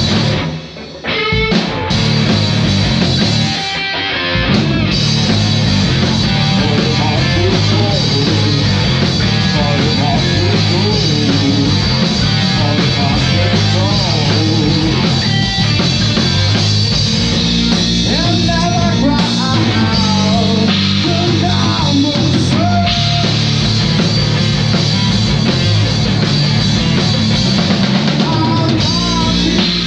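Rock music with guitar, singing and a drum kit playing along throughout. It briefly drops out about a second in.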